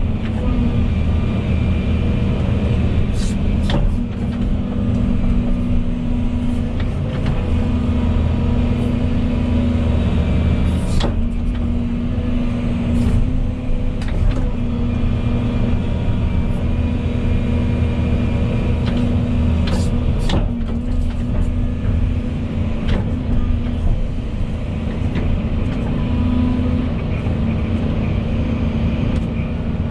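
Volvo EC220E excavator's diesel engine running steadily under hydraulic load while digging, with scattered short clicks and knocks.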